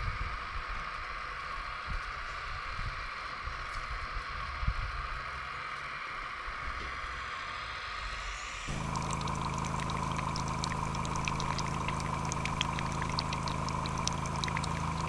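RC model excavator's hydraulic pump whining steadily while its bucket scrapes and knocks in soil and gravel. About halfway through it changes suddenly to water pouring from a hose and splashing into a puddle, over a steady low hum.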